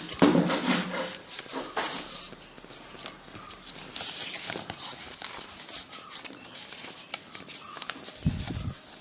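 Paper rustling and crackling in short bursts as a sheet is handled and creased by hand, loudest about a second in. A few low thuds come near the end.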